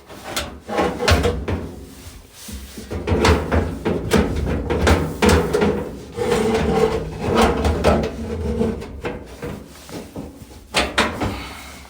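Irregular knocking, clattering and scraping of a dryer part being handled and worked back into place inside the dryer cabinet.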